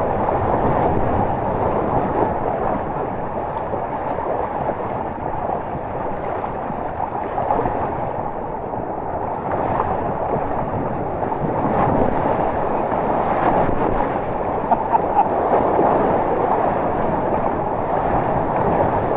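Rushing, splashing water of a rapids tube slide as a tube rides down the channel: a steady rush with no let-up.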